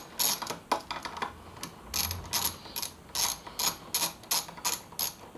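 Socket ratchet wrench with a 10 mm socket clicking steadily as a bolt is backed out, about three clicks a second.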